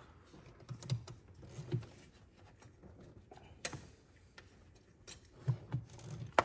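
Scattered light clicks and taps of small parts and hand tools being handled at a fuel rail while fuel injector retaining clips are taken off, with a sharper click about three and a half seconds in and another about five seconds in.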